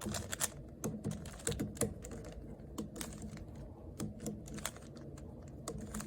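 Plastic 3x3 Rubik's Cube layers being turned by hand in quick succession, a run of irregular clicks and clacks as the faces snap round, while a middle-layer edge piece is inserted.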